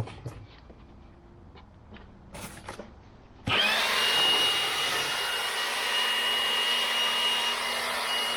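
A few light clicks and taps of handling, then about three and a half seconds in a battery-powered leaf blower switches on abruptly and runs steadily with a high motor whine over the rush of air.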